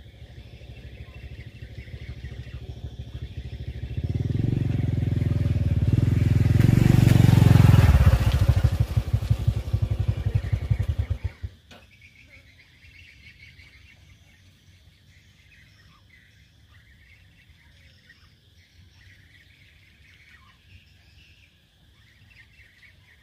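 A small engine running, growing steadily louder over the first several seconds, then cutting off suddenly about eleven seconds in.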